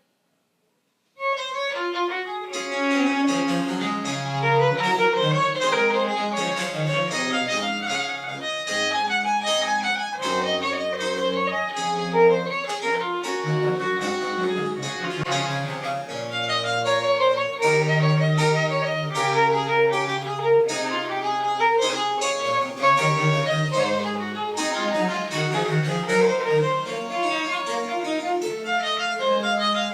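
Baroque chamber ensemble starting a piece about a second in: a bowed string melody over a moving bass line, with harpsichord continuo.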